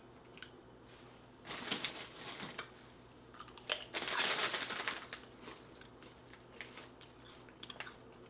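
Crinkling of a plastic snack bag as it is handled, in two main bursts, about a second and a half in and again around four seconds.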